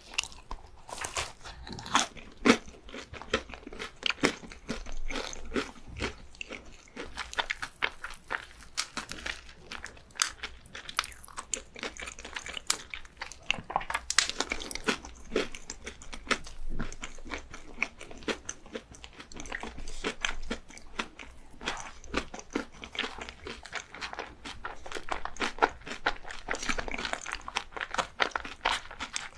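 Close-miked eating of crunchy sweets: a steady run of crisp bites and crunching chews, many sharp crackles a second.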